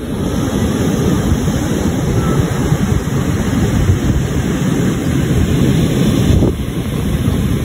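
Wind buffeting the microphone: a loud, steady low rumble that flutters rapidly, its higher hiss thinning about six and a half seconds in.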